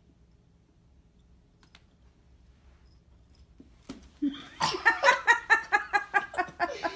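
A person laughing hard in quick, even pulses, several a second, starting a little past halfway. A short knock comes just before the laughter.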